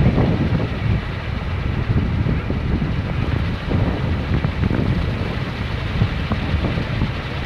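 Kolecer, a large wooden wind propeller on a pole, spinning in the wind with a steady deep rumble like thunder, its level swelling and easing, with wind buffeting the microphone.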